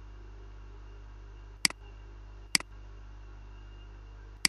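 Three sharp clicks of a computer mouse button, the first two about a second apart starting about one and a half seconds in and the third near the end, each followed closely by a fainter second tick. A steady low hum runs underneath.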